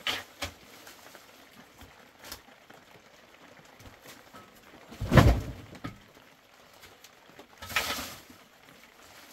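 A long-handled shovel knocking and scraping through dry mud-plaster rubble on a hard dirt floor: a few light clicks, a heavy thump about five seconds in, and a rasping scrape near the end.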